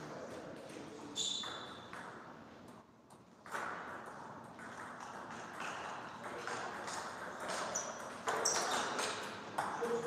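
Celluloid-style table tennis ball clicking off the table and rubber-faced bats: a few scattered sharp ticks as a point is set up and a rally starts, some with a brief high ring.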